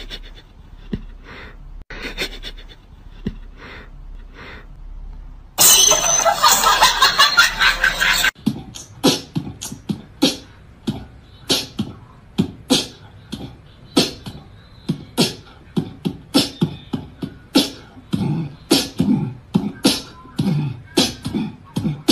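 A rhythmic beat of short, sharp percussive hits. About five seconds in, a loud, dense noisy stretch lasts nearly three seconds; after it the hits come faster, two to three a second.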